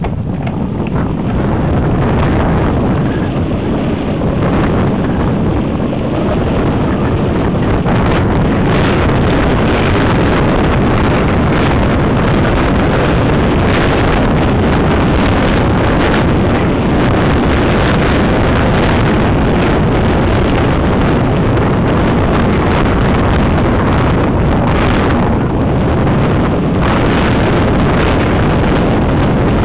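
Heavy wind buffeting a helmet-mounted camera's microphone as a mountain bike descends a rough, stony dirt trail, mixed with the constant rattle and knocks of the bike over rocks. The noise builds over the first couple of seconds as speed picks up, then stays loud.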